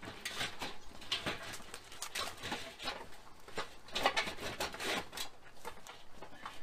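Steel drum smoker section being handled and set onto its base: irregular clanks, knocks and scrapes of metal.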